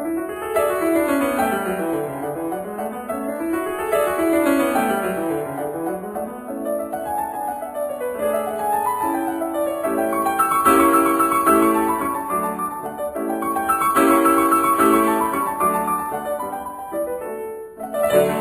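Background piano music: quick runs sweeping up and down the keyboard, then repeated chords from about six seconds in.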